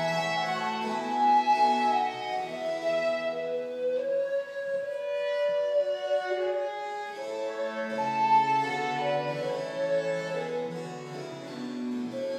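Chamber quartet of recorder, violin, bowed bass string and harpsichord playing together in sustained melodic lines. About four seconds in, the low voices thin out under one long held upper note, then the full texture returns.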